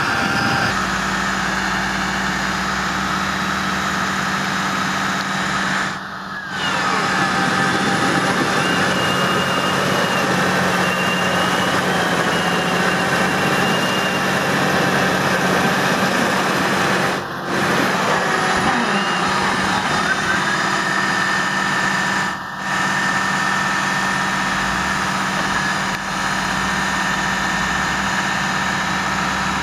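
New Holland tractor's diesel engine running steadily under heavy load, straining to pull a loaded, stuck muck trailer with its wheels slipping in mud. The sound drops briefly three times.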